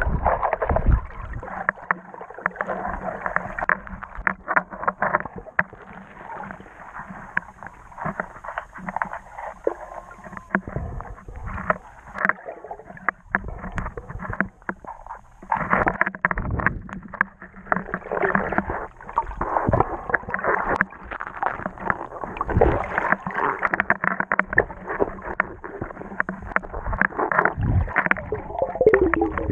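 River water sloshing and gurgling around a camera held underwater, heard muffled, with many small crackles and knocks. It is quieter in the middle and busier and louder from about halfway through.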